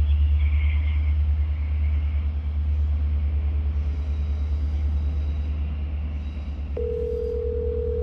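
A steady low rumble on an open phone line. Near the end a steady telephone ringback tone starts as another call is being added, and it sounds for about two seconds.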